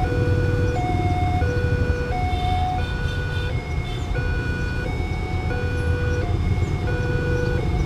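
Electronic two-tone alarm of an Indonesian railway level crossing sounding, alternating steadily between a higher and a lower tone about every 0.7 seconds. A low rumble runs underneath.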